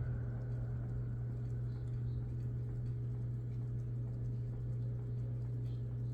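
Sierra Turbo II ceiling fan's K55-type motor running steadily on medium speed, with a constant low hum and faint, light ticking.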